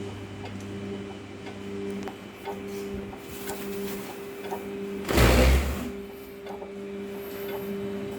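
Stepper motors of a home-built CNC machine running during homing, driving an axis toward its limit switch: a steady motor whine with faint regular ticks. A lower hum drops out about two and a half seconds in, and a loud, brief bump about five seconds in briefly covers the whine.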